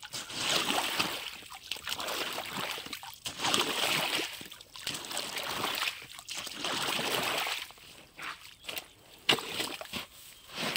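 Shallow, muddy canal water splashing and sloshing in a series of separate bursts as a person wades in rubber boots and works with his hands. It grows quieter after about seven and a half seconds, with a few sharp knocks near the end.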